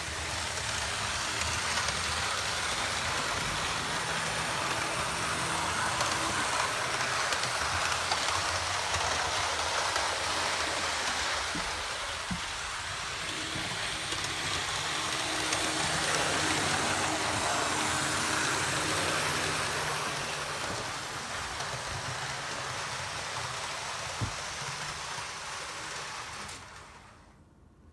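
Hornby OO-gauge class 47 model locomotive and coaches running around a model railway layout: the steady whirr and rattle of the small motor and wheels on the track, with a few light clicks, dropping away sharply near the end.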